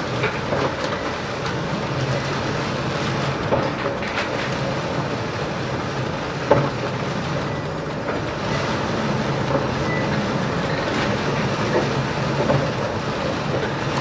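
Steady rumble inside a ship's wheelhouse in a heavy storm: the vessel's low engine drone under the noise of wind and sea, with a few knocks and rattles, the sharpest about six and a half seconds in.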